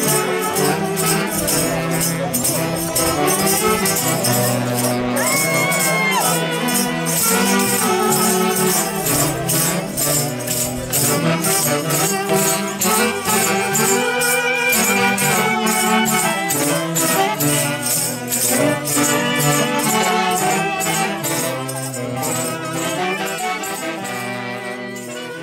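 Peruvian folk orchestra playing a festival dance tune: several melody instruments over a steady jingling beat. The music fades out near the end.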